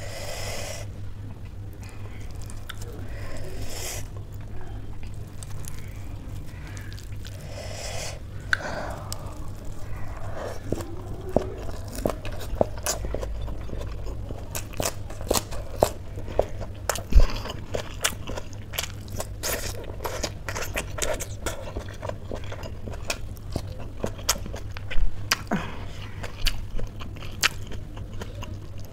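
Close-miked chewing of spicy instant noodles wrapped in a crisp lettuce leaf: a dense run of crunches and wet mouth clicks, thickest in the second half, after a couple of breathy hisses in the first few seconds.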